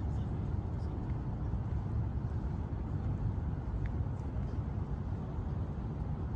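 Steady low rumble of outdoor city ambience, with a few faint ticks.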